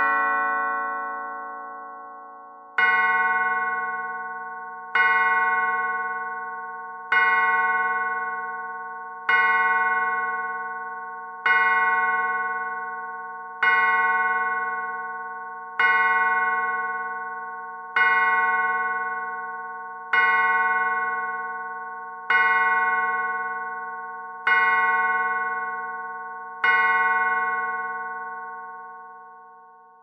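Antique pendulum clock striking the hour: the last note of its chime tune rings out, then twelve slow, even strokes on its bell, a little over two seconds apart, each ringing and fading before the next, the last dying away near the end. Twelve strokes mark twelve o'clock.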